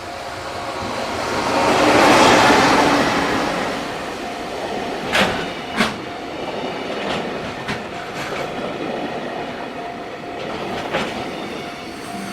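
Freight train passing close by: a loud rush of noise swells and eases over the first few seconds, then the wagons roll past steadily, with sharp clicks of wheels over rail joints every second or few.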